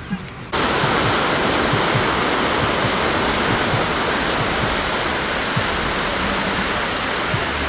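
Loud, steady rushing noise that starts suddenly about half a second in.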